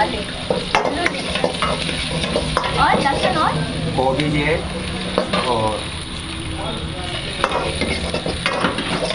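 Chopped garlic, chillies and vegetables sizzling as they fry in a hot wok, stirred with a metal ladle that scrapes and clicks sharply against the wok again and again.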